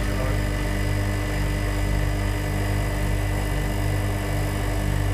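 Refrigeration condensing unit running steadily after its breaker has been reset, its compressor giving a constant electrical hum with a fixed higher tone and a faint even pulsing beneath.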